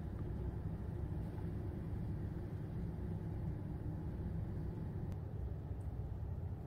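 Steady low background rumble of room tone, with a faint click about five seconds in.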